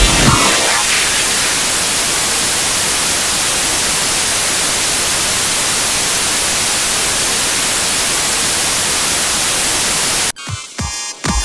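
Loud, steady static hiss that replaces electronic dance music within the first second. Near the end the static cuts off suddenly and the music returns with heavy bass hits.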